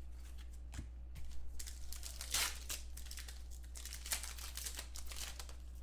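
Wrapper of a Panini Contenders football card pack crinkling as hands tear it open and handle it, loudest about two and a half seconds in. Two light knocks come about a second in.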